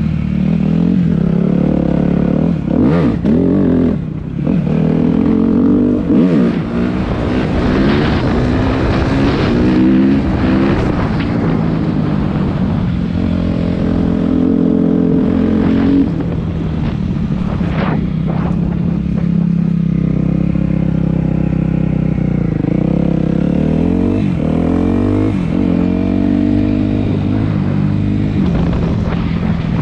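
2014 Suzuki RM-Z250 four-stroke single-cylinder motocross bike under way. The engine pitch climbs and drops again and again as the rider rolls on and off the throttle and shifts gears.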